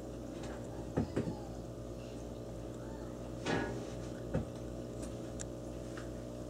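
Steady low hum of running aquarium equipment, with a few soft knocks and a brief rustle about three and a half seconds in.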